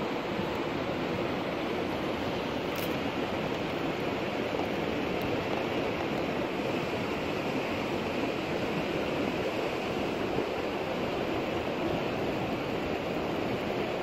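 Steady rushing of a fast-flowing river running over rocks.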